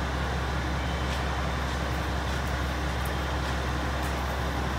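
Steady low hum and rumble of railway platform background noise, even and unchanging, with no distinct events.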